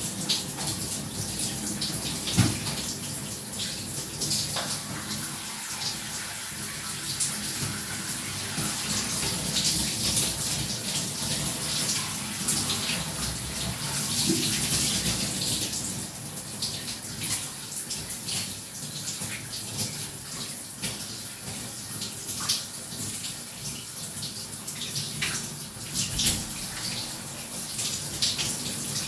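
Shower spray running steadily, with irregular splashes and spatters as the water hits.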